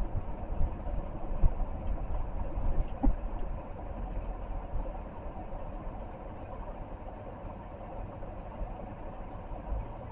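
Car running, heard from inside the cabin: a steady low engine and road rumble, with a few low thumps in the first three seconds.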